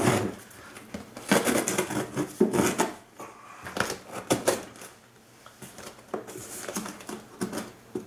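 Folding knife slicing through plastic packing tape on a cardboard box, the blade scraping and crackling along the cardboard in irregular bursts, with taps and rubs of hands on the box.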